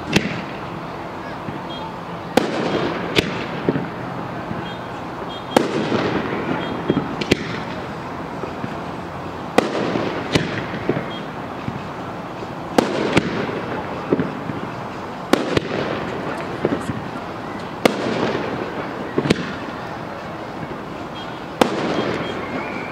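Aerial firework shells bursting in a display: about a dozen sharp bangs, roughly one every two seconds, each followed by a trailing rumble of echo.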